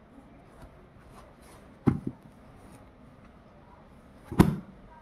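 Handling noise from a paperback book being moved and its pages turned by hand: faint paper rustling, a sharp double knock about two seconds in, and a louder thump a little before the end.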